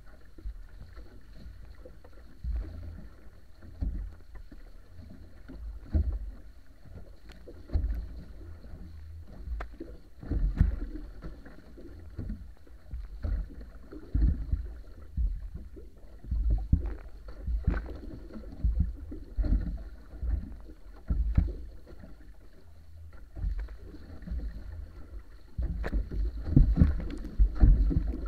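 Water rushing and splashing along the hull and outrigger float of a wa'apa outrigger canoe under sail, with irregular surges and slaps every second or two over a steady low rumble.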